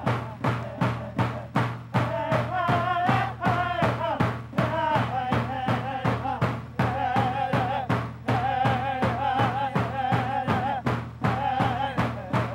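Music over the credits: a steady drum beat at about three strikes a second, with a wavering sung voice coming in about two seconds in.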